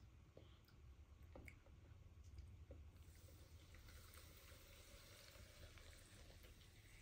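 Faint trickle of liquid poured from a plastic measuring jug onto popcorn in a glass jar, starting about three seconds in, after a few light clicks.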